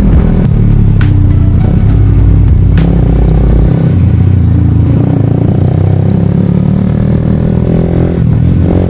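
Suzuki GSX-R125's single-cylinder four-stroke engine running under way, its revs climbing gently in the second half, with a few sharp clicks early on.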